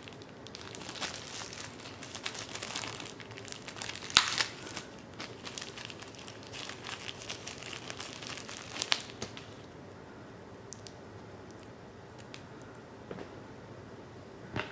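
Packaging crinkling and rustling as phone accessories are unwrapped and handled, with a sharp louder crackle about four seconds in and another near nine seconds; after that it turns faint.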